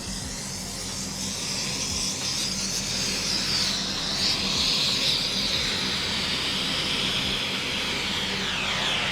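Hand-held aerosol fire extinguisher stick spraying in a steady hiss, putting out a small fire.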